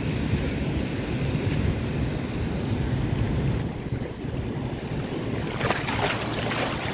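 Ocean surf breaking and washing up the beach, with wind buffeting the microphone in a low rumble. A louder hissing wash of water comes in near the end.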